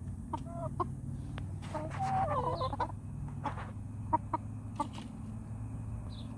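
Dominique hens clucking: a few short calls, then a longer wavering call about two seconds in, followed by several sharp clicks. A steady low hum runs underneath.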